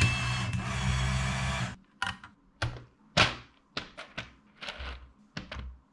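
A Lego motor driving the Technic column lift hums steadily, then stops abruptly about two seconds in. Then about ten knocks and rattles follow as Lego wheels with tyres are dropped into a plastic box of loose Lego pieces sitting on a kitchen scale.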